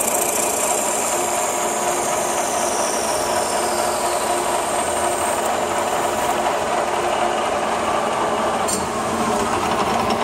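Metal-turning lathe running steadily while its cutting tool turns a scrap of nylon into a stepped bush. A high whine above the machine noise slides slowly down in pitch over the first few seconds.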